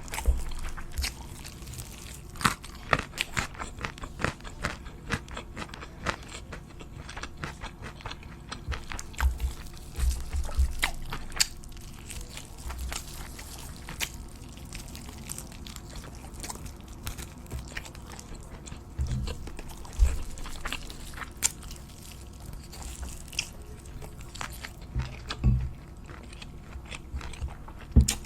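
Close-miked eating sounds: irregular crunchy bites and chewing of crisp food.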